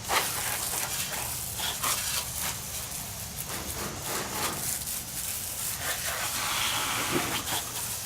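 Garden hose spraying water onto a minibike, a steady hiss of spray.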